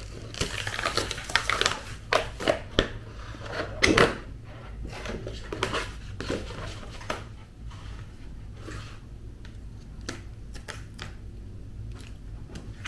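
Hands handling a Cricut cutting mat with freshly cut glitter cardstock: irregular clicks, taps and rustles, loudest about four seconds in and sparser after the first half, over a low steady hum.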